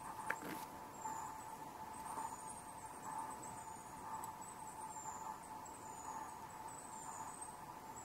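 Quiet forest ambience: very high, thin chirps every second or so over a steady faint hum, with one short click about a third of a second in.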